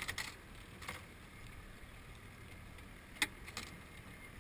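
Steady wind and sea noise around a small open boat, with a few short sharp knocks, the loudest about three seconds in.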